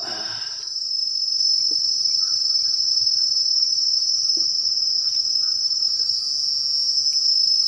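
Loud, steady, high-pitched drone of insects in tropical riverside forest, with a few faint ticks over it.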